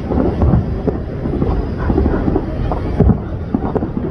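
Distant fireworks bursting in a continuous barrage of overlapping booms, with a louder bang about three seconds in.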